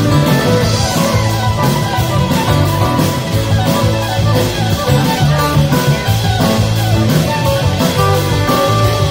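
Live string band with drums playing an instrumental passage: plucked strings and sustained melody notes over a steady drum beat with regular cymbal strokes.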